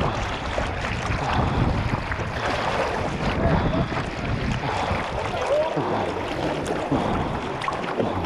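River water sloshing and splashing around a camera held at the waterline as a whitewater swimmer kicks through the current on a float board, with a rushing, uneven wash of water noise.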